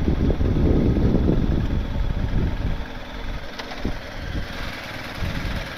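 BMW R 1250 GS boxer-twin motorcycle rolling slowly over dirt, with heavy low wind rumble on the microphone. About three seconds in it slows to a stop and settles to a quieter idle.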